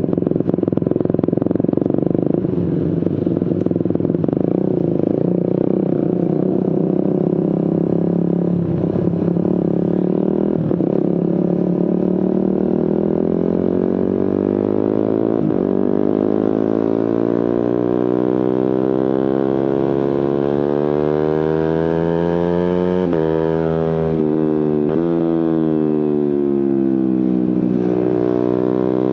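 Suzuki GSX-R150's single-cylinder engine running through an aftermarket Prospeed exhaust while riding. It holds a fairly steady note for about ten seconds, then revs up steadily for about ten seconds, with a quick drop and recovery in pitch a little over twenty seconds in. Near the end the revs fall and rise again.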